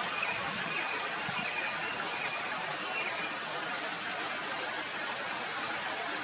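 Steady outdoor rushing noise, with a few faint, high-pitched bird chirps between about one and two and a half seconds in.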